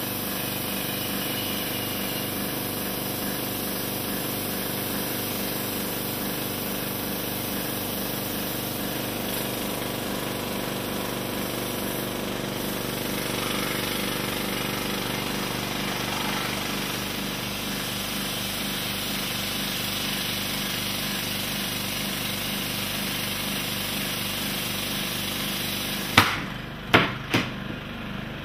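Small piston air compressor running steadily as it pumps a black rubber glove full of air. About 26 seconds in, the glove bursts with a sharp bang, followed by two smaller knocks, and the compressor keeps running.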